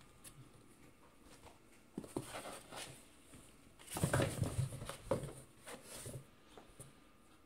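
Cats scrambling in a cardboard box: a sharp knock, then scuffs, scratches and thumps on the cardboard, loudest about four seconds in and dying away after about six seconds.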